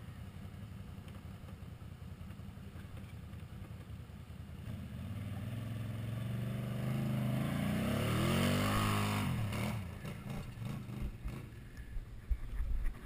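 Quad bike (ATV) engine running at low revs, then revving up with a rising pitch and getting louder as the quad pulls away up a dirt trail, falling off again about ten seconds in. A few knocks and thumps near the end.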